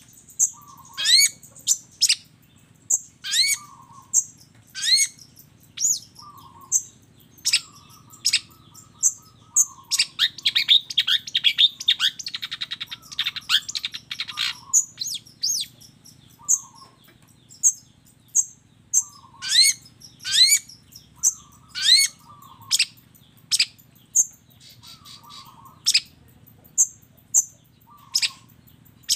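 Long-tailed shrike (cendet) singing: sharp, sweeping whistled notes about once a second, broken about a third of the way in by a fast chattering run lasting several seconds.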